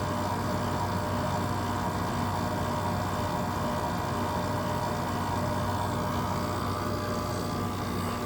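1999 Whirlpool 5000 BTU window air conditioner running on high fan with its LG rotary compressor on: a steady hum with the rush of the fan.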